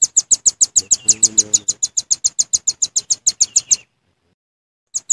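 Velvet-fronted nuthatch calling: a fast, even run of sharp, high chipping notes, about eight a second, that stops about four seconds in, followed by a single note near the end.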